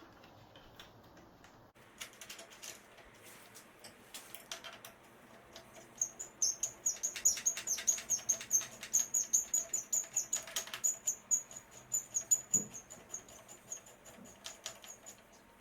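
Screwdriver driving in the retaining screw of a door's cylinder lock. A few scattered clicks, then from about six seconds in a fast run of small clicks with a thin high squeak over them, which stops near the end.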